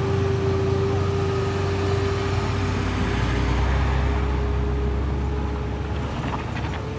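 Engines of light trucks climbing a rough dirt road: a steady low engine drone with a thin steady whine above it, easing off a little near the end.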